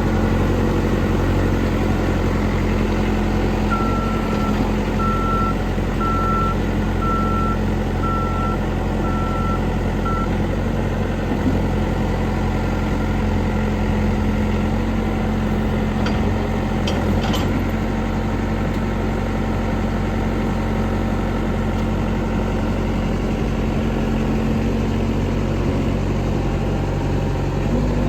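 Caterpillar 420 backhoe loader's diesel engine running steadily. Its reversing alarm beeps about once a second, seven times, starting a few seconds in. A few sharp knocks come a little past halfway.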